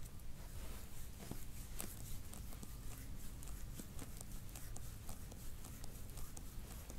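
Faint, irregular small clicks and taps over a low steady hum.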